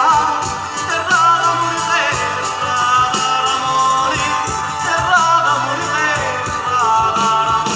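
Live southern Italian folk band playing, with accordion, guitars and bass over a steady beat.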